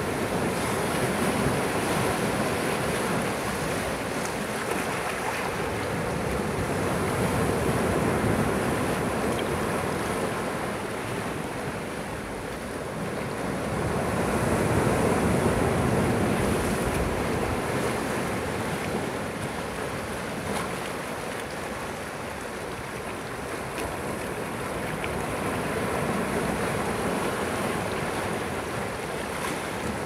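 Sea waves breaking and surf washing among rounded boulders on a rocky shore, a continuous rush that swells and eases in slow surges several seconds apart.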